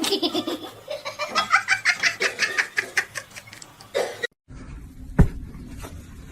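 A person laughing hard in quick repeated ha-ha pulses for about four seconds. It then cuts to a quieter stretch with a single sharp knock.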